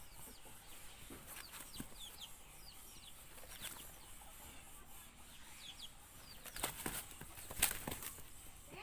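Chickens fighting: wings beating in a few sharp flurries, the loudest near the end, with short high chirps throughout.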